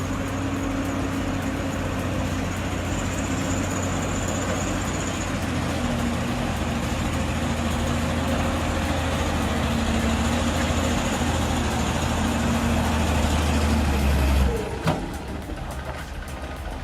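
A heavy machine's engine running steadily under load, growing slightly louder, then cutting off abruptly near the end, followed by a single knock.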